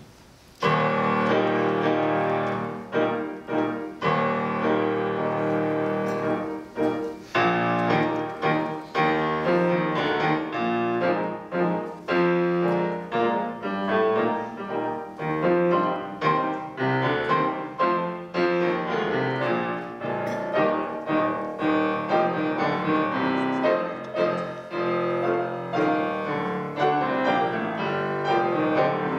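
Two grand pianos playing together, beginning about half a second in with a loud chord and going on with a steady run of repeated chords.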